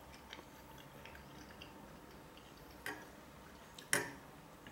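Quiet room tone with two light clicks about a second apart near the end, the second louder, as a fork taps against a food container.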